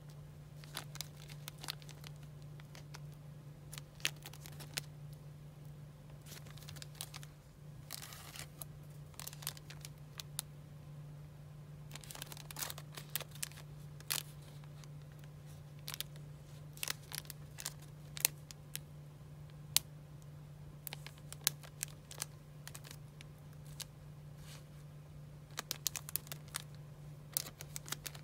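Small clear plastic zip-lock bags crinkling and rustling as they are handled, with scattered light clicks and ticks throughout, over a steady low hum.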